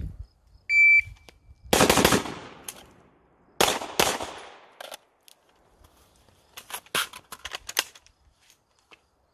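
A shot timer beeps once, then a handgun is fired in quick strings: a rapid run of shots about two seconds in, another a little before four seconds, and several more spaced shots between about six and a half and eight seconds.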